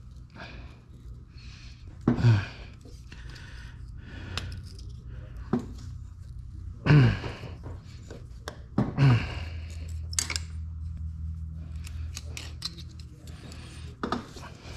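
A hooked seal-puller pick clicking and scraping against the metal-cased countershaft seal and the aluminium engine case of a KTM 300 XC-W two-stroke as it is worked around the seal to pry it loose. Three short grunts with falling pitch, about two, seven and nine seconds in, are the loudest sounds.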